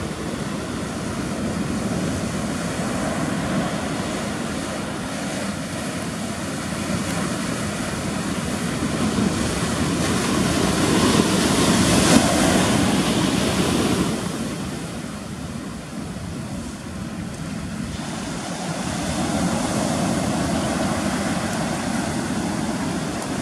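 Surf breaking on a sandy beach, a steady wash of waves that swells to its loudest as a large wave breaks about halfway through, then eases and builds again.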